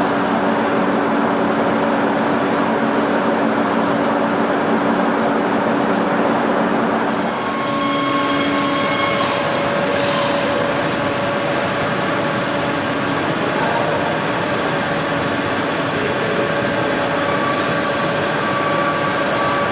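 Large Pama boring and milling machine running: a steady mechanical noise with several steady tones. About seven seconds in, the lower tones drop away and higher ones take over.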